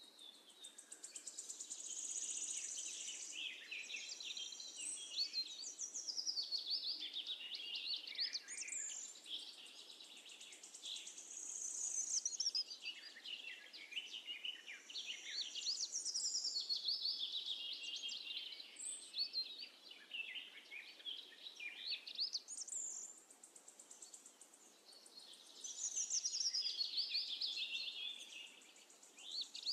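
Birds chirping and singing, a busy high-pitched chorus of quick chirps that swells and fades in waves about every ten seconds.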